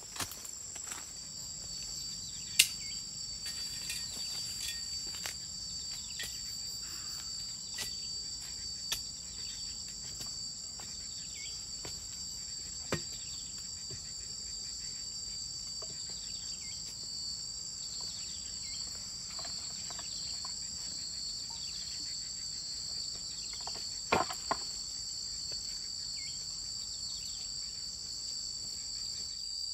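Steady high-pitched insect chorus of two held tones, with a bird giving short falling whistles again and again through the middle, and a few sharp knocks or snaps, the loudest near the start.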